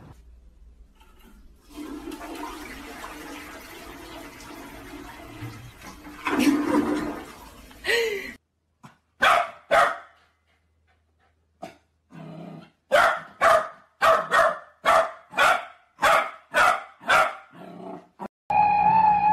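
Toilet flushing as a cat paws at the flush lever, the water rushing for several seconds. After a pause, a dog barks over and over in short barks, about two a second toward the end.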